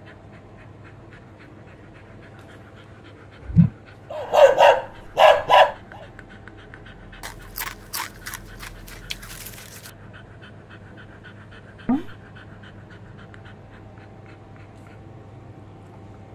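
A dog panting quickly and steadily, with two short, louder dog sounds about four to five seconds in. A few clicks and a brief hiss come around eight to ten seconds in.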